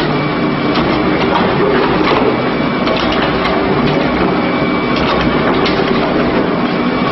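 Industrial twin-shaft shredder running, its rotating cutter discs grinding and crunching through meat. A steady mechanical hum runs under irregular sharp cracks.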